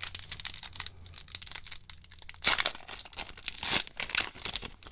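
The foil wrapper of a Magic: The Gathering booster pack being torn open by hand and pulled apart, crinkling throughout, with two louder rips about halfway through and again toward the end.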